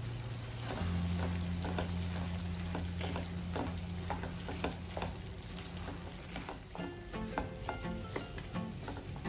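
A spatula stirs potatoes and French beans with grated coconut in a nonstick pan, making repeated scrapes and light taps over a soft sizzle. Quiet background music with low held notes plays underneath.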